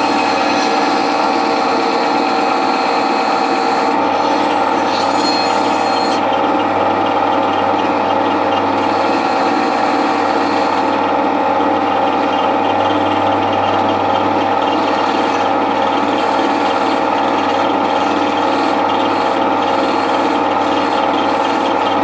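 Bandsaw running with a steady hum while its blade cuts through a thick block of wood; the hiss of the cut comes and goes as the piece is fed and turned.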